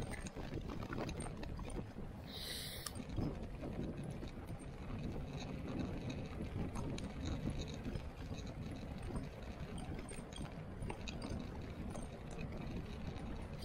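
Fat-bike tyres rolling on a wet tarmac path, heard as a steady low rumble of tyre and wind noise with small rattles from the bike. A short high-pitched squeal about two and a half seconds in.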